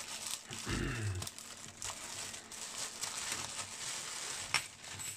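Clear plastic packaging bags crinkling and rustling as they are handled and pulled open, with a sharp click near the end.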